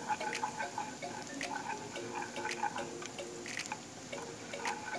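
Soft instrumental background music of short plucked notes. Under it are scattered clicks and a faint hiss from minced garlic frying in oil as a wooden spatula stirs it.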